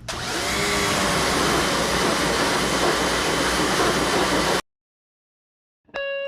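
Pressure washer running and spraying water: a loud, steady hiss of the jet over the machine's motor, which cuts off abruptly about four and a half seconds in. After a second of silence, music starts near the end.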